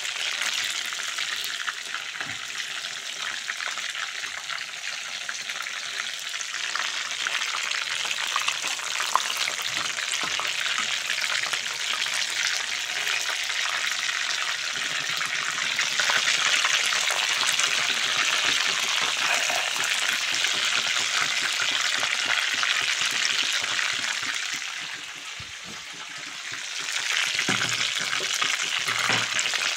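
Chicken meatballs deep-frying in hot oil in a wok, a steady sizzling that dips briefly a few seconds before the end.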